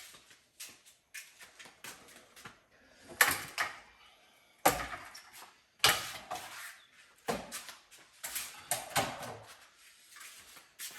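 Irregular knocks and clunks of hard objects being handled and set down, with about six loud ones from about three seconds in and lighter clatter between.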